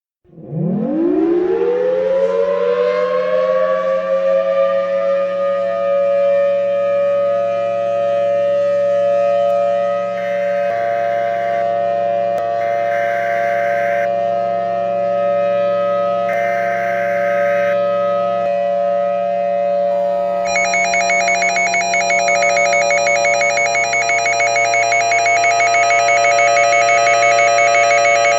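Outdoor warning siren winding up over about two seconds, then holding a steady multi-note wail, sounding as a tornado alarm. Three short higher beeps come in between about ten and eighteen seconds in, and from about twenty seconds a fast-pulsing, high ringing tone plays over the siren.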